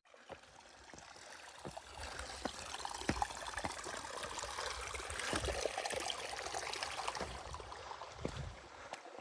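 Running water of a small stream trickling over rocks, swelling and then fading as it is passed, with scattered footsteps and clicks on the rocky trail.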